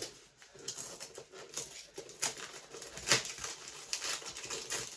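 Light, irregular clicks and rustling from hands handling a cardboard jigsaw puzzle box and its packaging.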